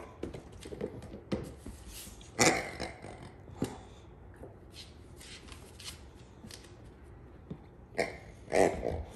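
A Boxer dog mouthing and chewing a rubber pig toy, the toy knocking and scraping on a hardwood floor and rug. The clicks and knocks come irregularly, with two louder rasping sounds about two and a half seconds in and near the end.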